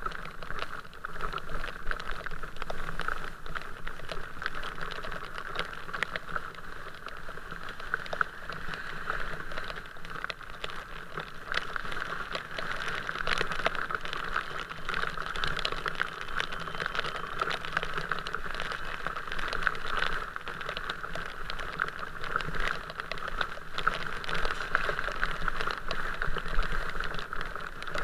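Steady rain, with many small drops tapping irregularly close to the microphone.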